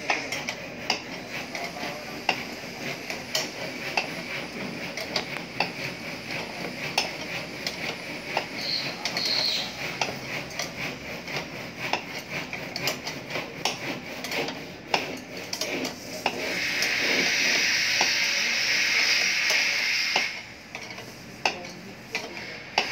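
Irregular metal clinks and taps of tools on a three-jaw bearing puller as it is tightened to draw a worn, noisy bearing off an alternator shaft. About 16 seconds in, a steady hiss comes in and lasts about four seconds.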